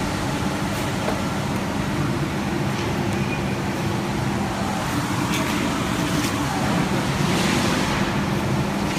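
Flat UV curing machine (UV dryer) running with a steady mechanical hum, with a few light clicks on top.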